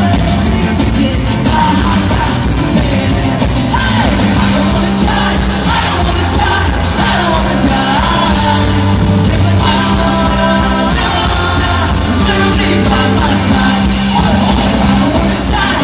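Live ska-punk band playing loud, with electric guitars, bass and drums under a lead singer, heard from the audience in a large hall.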